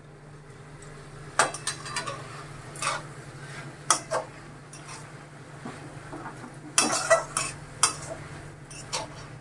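Steel spatula scraping and clinking against a metal kadai while stirring grated ash gourd and coconut, in irregular strokes with a quick cluster about seven seconds in. A steady low hum runs underneath.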